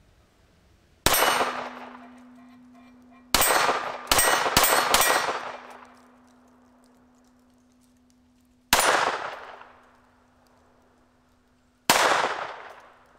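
Walther PPK/S .22 LR pistol firing unsuppressed, seven shots: one, then after a pause four in quick succession, then two single shots a few seconds apart. A steady low ring hangs on after the first shot.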